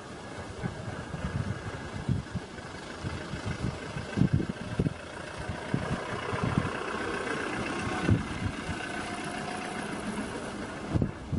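A vehicle engine idling steadily, with irregular low thumps.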